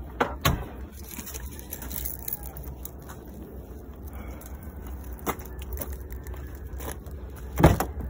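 Keys jangling and a few scattered clicks over a steady low rumble, then a loud clunk near the end as a hand pulls the Volkswagen's door handle.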